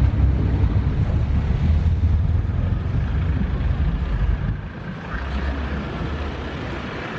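Diesel engine of a heavy-haul truck running with a low, steady rumble that eases a little about four and a half seconds in.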